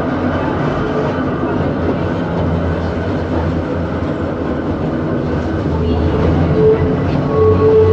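A 1950 Hakone Tozan Railway Moha 1 electric railcar running, heard from inside the cab. Its wheels rumble on the rails under the hum of its nose-suspended traction motors and gearing. The steady tones grow stronger in the last couple of seconds.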